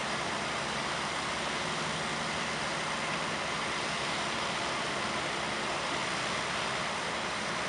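Heavy machinery's engine running steadily under a constant noisy hum, with no change in loudness.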